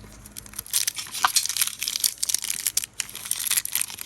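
Foil Pokémon card booster pack being torn open and crinkled by hand: a run of irregular crackling and tearing that starts about a second in.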